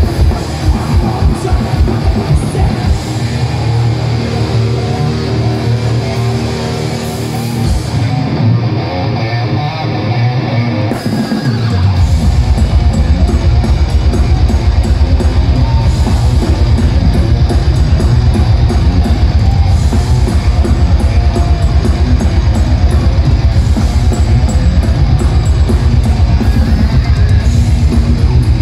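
Thrash metal band playing live, with distorted electric guitars, bass guitar and drums. For the first few seconds the drums play, then drop out for a stretch of guitar and bass riffing. About twelve seconds in the whole band comes back in with very fast, steady kick drumming under the guitars.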